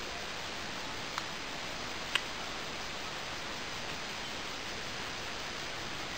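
Steady even hiss, with two short sharp clicks about a second and two seconds in.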